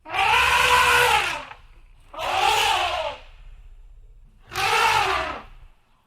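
Elephant trumpeting: three loud blasts of about a second each, the pitch rising and then falling within each blast.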